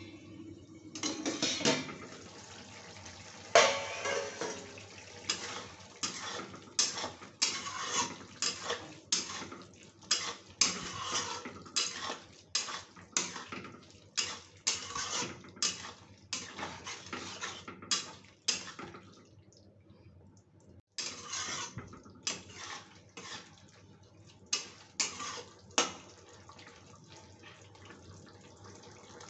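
Metal spatula scraping and knocking against an iron kadhai while stirring a thick potato and pointed-gourd curry, a stroke every second or so, with a short pause about two-thirds through.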